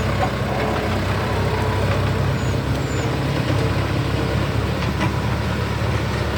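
Heavy engine running steadily at idle, a low even hum with a few faint ticks over it.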